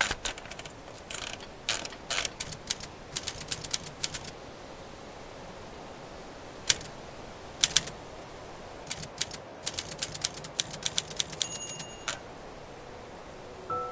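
Manual typewriter keys clacking in irregular runs, with a small bell dinging near the end, over a steady hiss.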